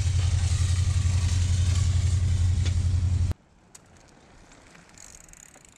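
A vehicle engine idles with a steady low hum, then cuts off abruptly about three seconds in, leaving near quiet with a faint click.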